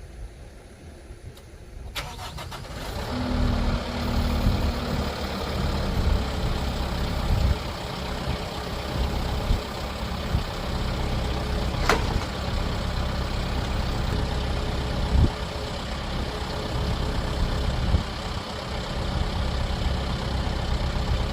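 Kubota tractor diesel engine cranking and catching about two seconds in, then running steadily, with a couple of sharp knocks partway through.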